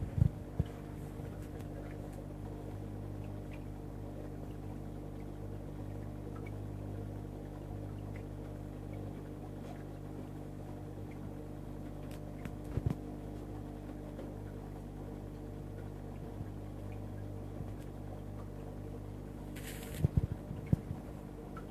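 Steady electric hum of marine aquarium pumps, holding several fixed tones. A few soft knocks break in near the start, in the middle and near the end, with a short hiss just before the end.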